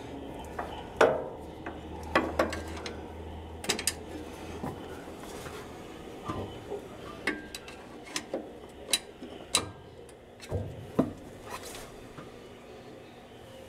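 Hub cap on a hand-spun front wheel of a 1949 Chevy 3100 clicking irregularly, roughly once a second, with a low hum in the first few seconds. The clicking comes from hub cap mounting clips that need adjusting.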